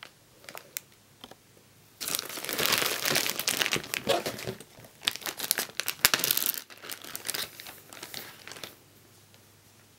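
Clear plastic bag crinkling as it is handled and opened. There are faint clicks for the first couple of seconds, then a loud stretch of crinkling for about five seconds that dies away near the end.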